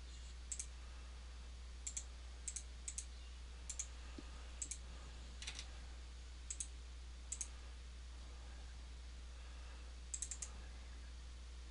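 Faint clicks of a computer mouse, about a dozen scattered at irregular intervals and many of them in quick press-and-release pairs, over a steady low electrical hum.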